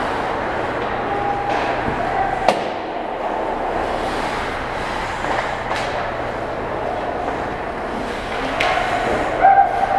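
Ice hockey play: skates scraping and carving the ice under a steady hiss, broken by a few sharp cracks of sticks and puck, the loudest about two and a half seconds in. Brief shouts from players come near the end.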